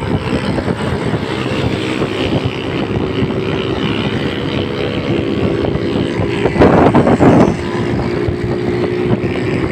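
Small motor vehicle engine running steadily at speed, with wind and road noise. A louder, rough rush of noise comes about six and a half seconds in and lasts about a second.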